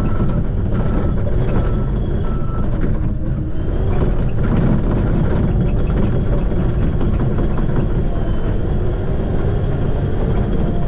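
Shantui bulldozer's diesel engine running steadily under load, with clattering from the tracks. A short beep repeats about twice a second for the first couple of seconds, then stops.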